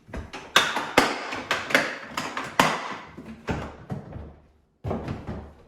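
A quick, irregular run of sharp clacks and knocks from hard plastic tool cases being handled and fitted together, with a short pause before the knocking resumes near the end.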